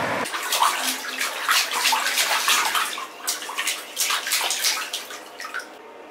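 Bath water splashing as a baby plays with his hands in a bathtub: quick, irregular splashes that thin out near the end.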